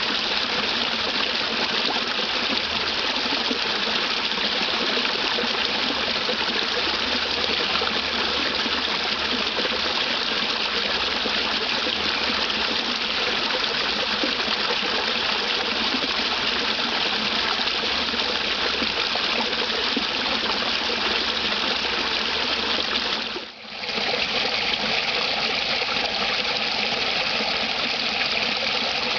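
Water rushing steadily over a small creek waterfall and cascade, dipping briefly about twenty-three seconds in before running on.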